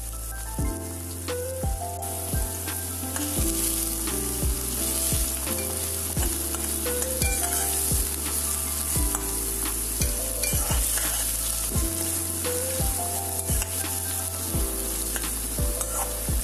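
Chopped onions and curry leaves sizzling in hot oil in a steel pan, stirred with a slotted steel spatula.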